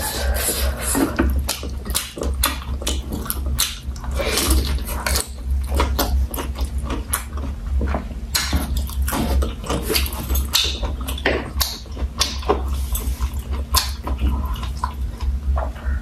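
Close-miked chewing and wet mouth sounds: irregular smacking and clicking as chewy boiled beef pizzle is eaten, over a steady low hum.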